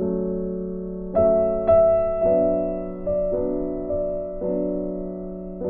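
Background piano music: single notes and chords struck every half second to a second, each ringing out and fading.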